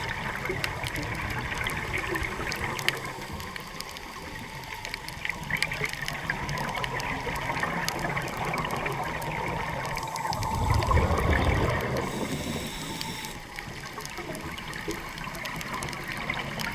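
Underwater sound picked up by a diver's camera: a steady hiss of water, scattered with many small sharp clicks and crackles. About ten and a half seconds in, a louder low rush of bubbling swells for over a second, the diver's exhaled breath bubbles.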